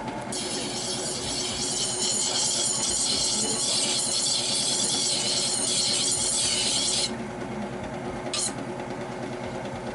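Steel knife edge being ground against a motor-driven sharpening wheel: a steady, hissing grind for about seven seconds over the hum of the running motor, then a brief touch of the blade near the end.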